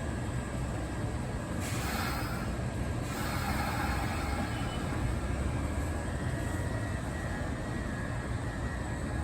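Kintetsu electric train running through the station: a steady low rumble, with two short hissing bursts about two and three seconds in.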